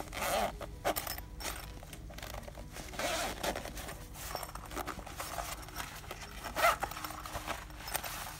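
Zipper on a padded fabric pouch being pulled open round its edge in several short runs, with the fabric rustling as the pouch is turned in the hands between pulls; the loudest zip comes near the end.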